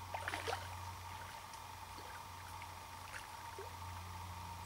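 A brief burst of water splashing in the first half-second, then a few faint scattered splashes or ticks, over a steady low hum.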